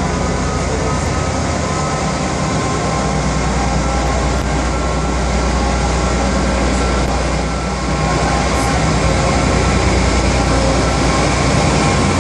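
Diesel locomotive, an FS D.445, running as it slowly draws a train along the platform. Its engine gives a steady low drone that gets somewhat louder as it approaches.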